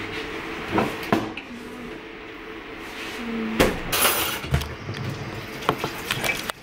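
Kitchen clatter at a sink: scattered knocks and clinks of dishes and utensils, with a brief rush of tap water about four seconds in as tomatoes are rinsed.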